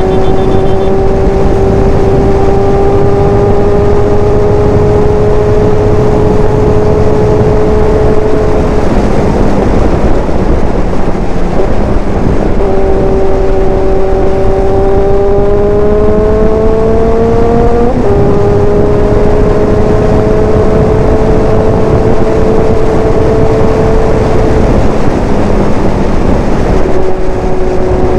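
Big-bike motorcycle engine pulling at highway speed, heard from the rider's seat over heavy wind rush on the microphone. The engine note climbs slowly, fades about nine seconds in as the throttle eases, then climbs again. It drops suddenly about eighteen seconds in, as at an upshift, and rises once more near the end.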